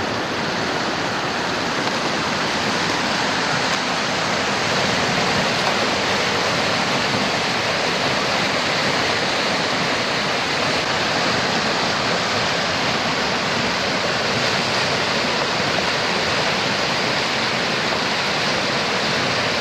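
Whitewater river rapids rushing steadily, a continuous even noise of churning water.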